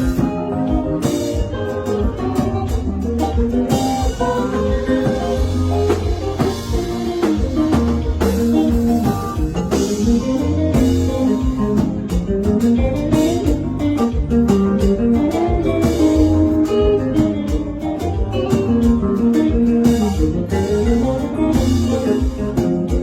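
Instrumental music: a guitar plays a running single-note solo line over bass and a drum kit.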